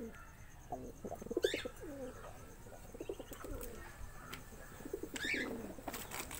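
Domestic pigeons cooing, low pulsing coos in two bouts, about a second in and again about five seconds in, with a few brief high chirps among them.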